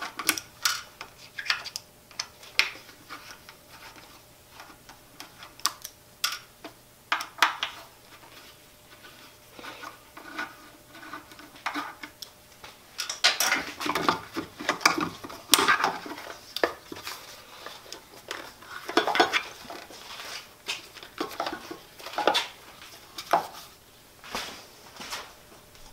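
Hex key and small screws clinking and scraping against the metal RPM-gauge faceplate of a Jet JWL-1642EVS lathe headstock as it is unscrewed and lifted off. Irregular metallic clicks and rattles, thickest about halfway through.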